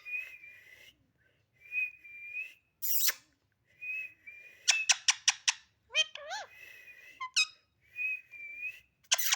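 Pet parrot whistling short steady notes, broken by a quick run of sharp chirps about five seconds in and again near the end.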